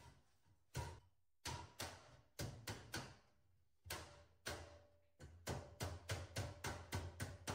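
Hammer striking a sheet-metal duct seam to close it: single ringing taps at uneven spacing, quickening to about four a second in the second half.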